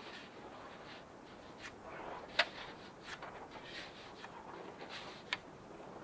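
A small metal-bladed shovel digging and scraping into deep, powdery snow, with scoops of snow tossed aside in a series of short scrapes and rustles; two sharper clicks stand out, about two and a half and five seconds in.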